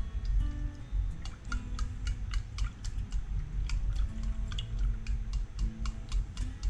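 A utensil clicking and scraping against the inside of a glass snow globe while it stirs glue into the water to dissolve it: quick, irregular clicks, a few a second.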